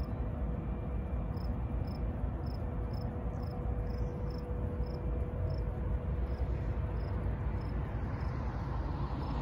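Crickets chirping in a steady rhythm, about two chirps a second, over a low, steady rumble.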